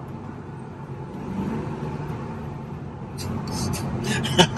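Cabin noise of a BMW Z4 3.0's straight-six engine and the road while driving: a steady low drone. In the last second and a half comes a quick run of sharp clicks and knocks, the loudest sounds here.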